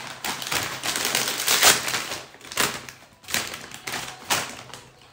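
Foil-lined crisp bag crinkling and crackling as it is handled and pulled open. It comes as a string of sharp crackles, loudest a little under two seconds in.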